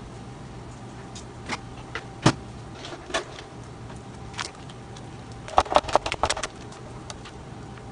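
A handheld citrus press being worked: a quick run of sharp plastic-and-metal clicks and clacks about five and a half seconds in, after a few scattered single knocks. A steady low hum runs underneath.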